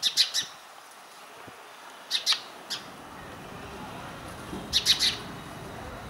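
Indian house sparrow chirping: short, sharp chirps in three clusters of two to four notes, at the start, about two seconds in, and near five seconds.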